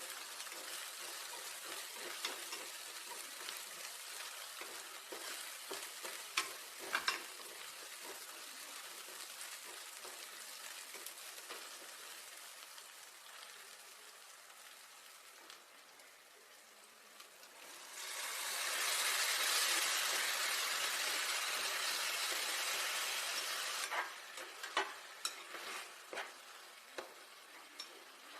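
Food sizzling as it fries in oil in a pan, stirred with a spoon that clicks against the metal now and then. About two-thirds of the way through, the sizzle grows much louder for about six seconds, and several spoon clicks come near the end.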